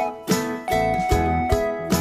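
Background music: a pitched instrumental tune with notes struck at a steady beat.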